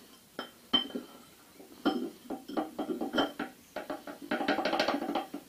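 Metal clinks and knocks as a cylinder sleeve with its piston is handled and set down into a bore of the cast-iron engine block, several separate strikes with a short ring. About four seconds in comes a second of rapid clatter.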